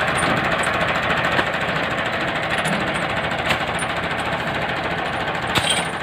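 Diesel tractor engine, on a Massey Ferguson 375, running steadily with a rapid, even clatter. A few light knocks come through over it.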